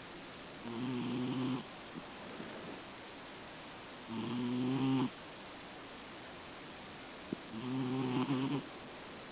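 A sleeping cat snoring: three snores, each about a second long, evenly spaced about three and a half seconds apart.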